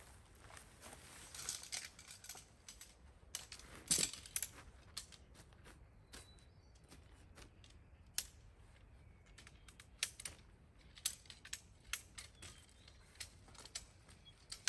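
Tent poles and fittings being handled: scattered light clicks and clinks at irregular intervals, the sharpest about four seconds in, with a short stretch of rustling near the start.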